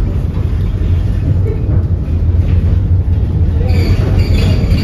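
Konstal 805Na tram running along the track, heard from inside the car: a steady low rumble of wheels on rails and of the running gear. Higher, brighter rail noise joins near the end.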